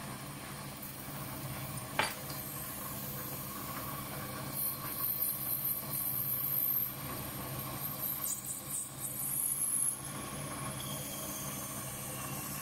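Mini lathe running with a steady motor hum while a parting tool cuts into a spinning Delrin (acetal) bushing, the cut hissing in two spells of a few seconds each. A single sharp click comes about two seconds in.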